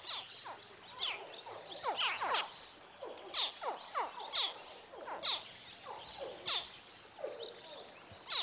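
Crocodile hatchlings chirping from the nest as they hatch: many short, falling chirps, roughly two a second, several voices overlapping. These are the hatching calls that summon the mother crocodile.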